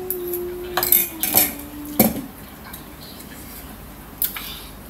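Metal fork and spoon clinking and scraping against ceramic plates, a few sharp clinks in the first two and a half seconds and one more near the end. A held low hum that steps down in pitch runs under the first two seconds.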